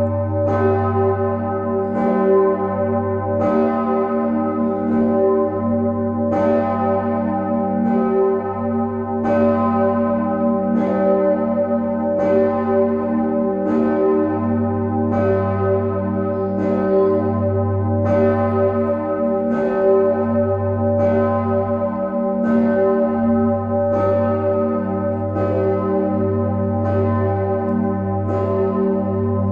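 The Osanna, bell 1 of the Nikolaikirche, tuned to g°, swinging and ringing alone. Its clapper strikes about once every second and a half, and each stroke rings on under the next in an even, unbroken peal.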